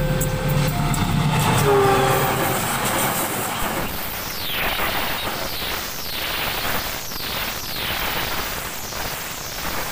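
A diesel-hauled passenger train passing close at speed. The locomotive's horn sounds several steady notes over its engine in the first two seconds, then the carriages rush past with a falling swish from the wheels repeating about once a second.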